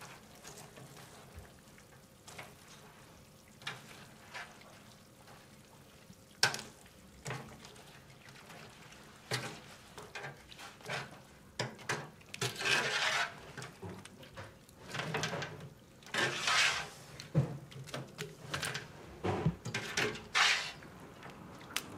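Metal skimmer and wire strainer working jalebis in a large metal wok: irregular splashes of liquid and scrapes and knocks of metal on the pan. It is quiet at first and gets busier from about halfway through.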